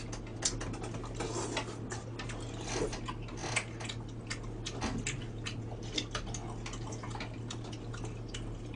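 Mealtime eating sounds: irregular small clicks and taps of metal spoons and chopsticks against bowls and plates, with a few soft slurping and chewing noises over a steady low hum.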